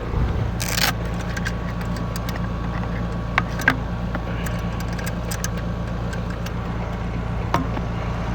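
Steady low hum of a running air-conditioning or heat-pump system, with a short rustle just under a second in and a few sharp clicks of tools and gear being handled.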